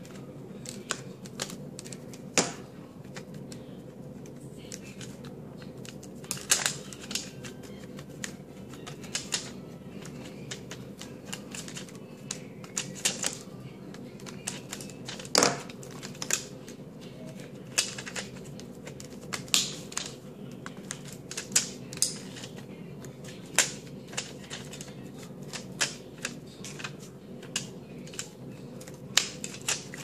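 Irregular small clicks and taps as fingers work laptop SO-DIMM memory modules out of and into their slots and press on the slot clips and casing of an Acer Aspire TimelineX laptop, with a few sharper snaps, over a steady low hum.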